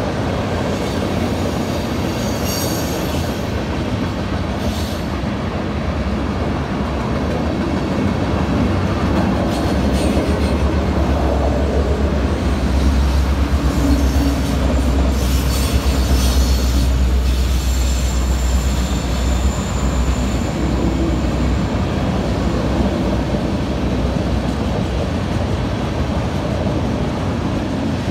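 Freight train of tank cars and covered hopper cars rolling past at steady speed: a continuous rumble of wheels on rail, heaviest in the middle, with short high squeals from the wheels now and then.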